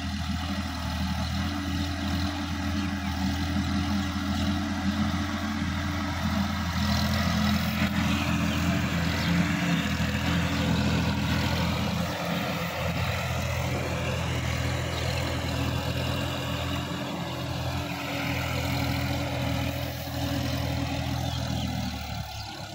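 Diesel engine of a Sonalika DI-50 RX tractor running steadily at a constant speed while it pulls a tillage implement through wet paddy-field mud. The sound drops off just before the end.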